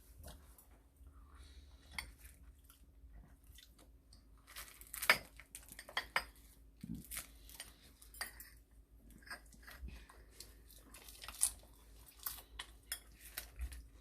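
Spoons and chopsticks clinking and tapping against bowls and plates during a meal: scattered sharp clinks, the loudest about five seconds in, with some chewing between them.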